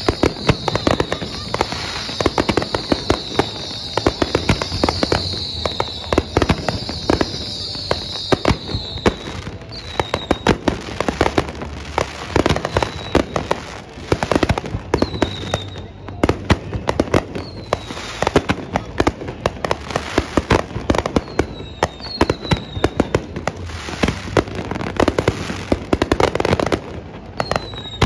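Aerial fireworks going off in a dense, continuous string of bangs and pops. High whistles run over the first several seconds, and short falling whistles come now and then afterwards.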